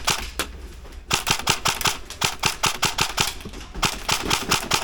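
Rapid full-auto airsoft gunfire: a steady stream of sharp clicks, about ten a second, with a short lull about half a second in and a low rumble underneath.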